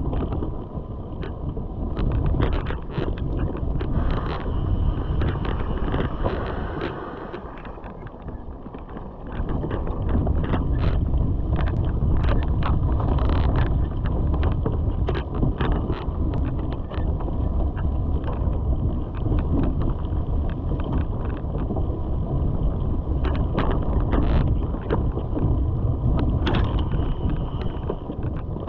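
Mountain bike ridden along a dirt singletrack: wind buffeting the microphone over the rumble of knobby tyres, with many sharp rattles and clicks as the bike jolts over bumps. The rumble eases for about two seconds about seven seconds in, then comes back.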